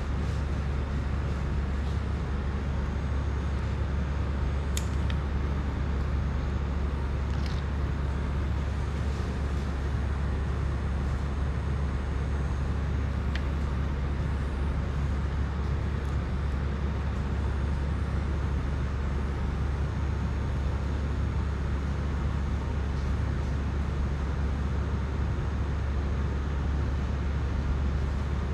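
Steady low background rumble, with a few faint small clicks from tools and parts handled on the desk.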